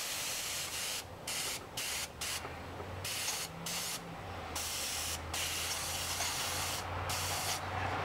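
Airbrush spraying paint in short bursts, the air hiss cutting off and starting again many times as the trigger is worked, over a faint low hum.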